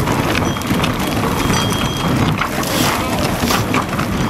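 Tunnel boring machine grinding through the rock behind the portal's shotcrete wall: a steady rumble with scattered cracks and clicks and a few brief high ringing tones.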